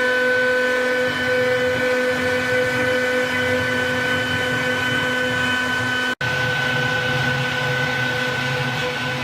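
PK-1325 CNC wood-carving router running, its spindle giving a steady whine of several held tones over a noisy rush. It drops out for an instant about six seconds in, then carries on unchanged.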